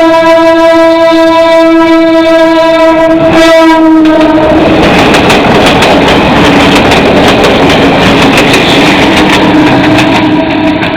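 Philippine National Railways train horn sounding one long, steady blast that stops about four and a half seconds in. It is followed by the loud rushing noise and irregular wheel clatter of the train passing close by.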